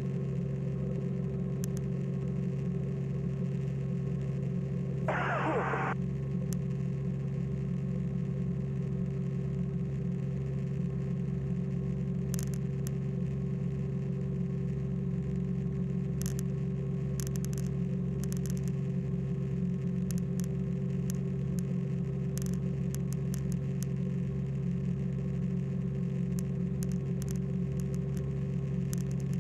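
Light aircraft's engine drone heard inside the cabin, a steady hum with a constant low pitch. A short burst of noise comes about five seconds in, and faint clicks come through now and then.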